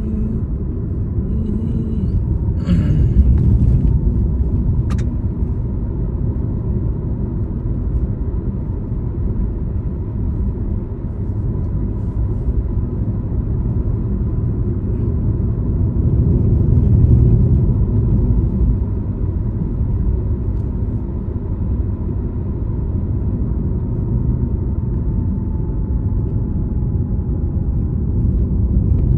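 Steady low rumble of a vehicle driving along a road, engine and tyre noise, with a faint whine that drops slightly in pitch near the end.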